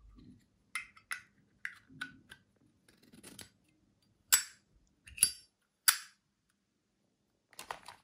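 Zippo 29828 windproof lighter handled: small metallic clicks and taps as the chrome insert is fitted back into the case, then three loud, sharp clicks of the hinged lid snapping open and shut, and a few softer knocks near the end.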